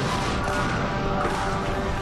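A TV action scene's soundtrack: background music with long held notes over a continuous rumble of explosions and crashes.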